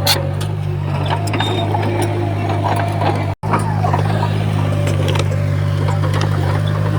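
Komatsu D51PX bulldozer's diesel engine running steadily under load, with scattered metallic clicks and rattles over it. The sound cuts out for a split second a little over three seconds in.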